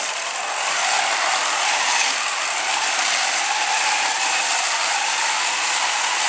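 Mecanum-wheel robot drivebase driving on carpet: its drive motors and gearboxes make a loud, steady, gear-like mechanical rattle.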